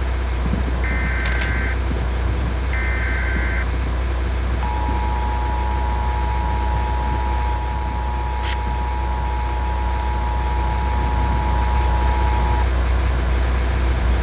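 Emergency Alert System weather alert: the last two of three short warbling data bursts, then the steady two-note attention tone held for about eight seconds. Underneath is the constant low rumble of a vehicle cabin.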